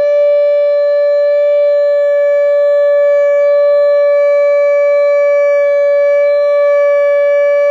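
A man's voice holding one very loud, dead-steady sung note directly into a crystal wine glass, pitched to the glass's resonance to make it vibrate until it shatters.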